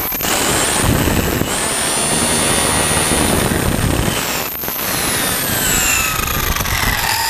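Electric 1/5-scale FG Audi RS5 4WD RC car on 8S LiPo, heard from onboard: the brushless motor's high whine holds near top speed, then falls steadily as the car slows, and starts to climb again at the end. Heavy rumble of wind and tyres on asphalt underneath.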